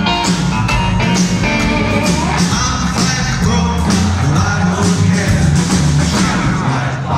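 Live rockabilly band playing: electric guitar, slapped upright double bass and drums, with sung vocals, heard from the audience.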